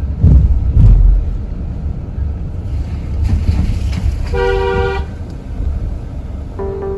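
Vehicle running on a road with a steady low rumble, two loud thumps about a second in, and a short single honk of a vehicle horn about four and a half seconds in. Music comes in near the end.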